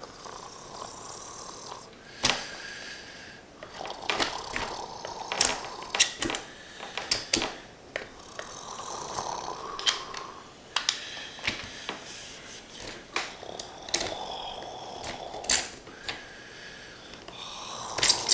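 The factory-sealed plastic wrapping of a 100-card cube being worked open: crinkling and tearing, with many sharp, irregular crackles and clicks.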